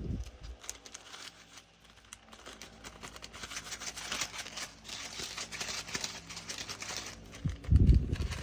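Crinkling plastic and small clicking rattles as diamond-painting resin drills and their bags are handled during kitting up, with a few low knocks on the table near the end.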